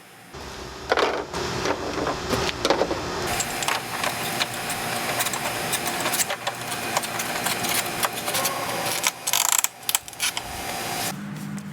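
Cordless impact driver hammering screws into plastic shed panels: a steady motor tone with rapid clicking that runs for about eight seconds and then cuts off, after a few seconds of knocking and clattering.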